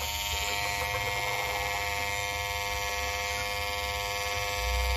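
Small corded electric hair trimmer buzzing steadily as it shaves the feathers on a rooster's face.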